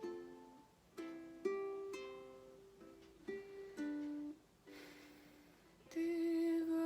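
Ukulele picking a slow intro, with notes and small chords plucked about once a second and left to ring out. Near the end a sung note comes in over it.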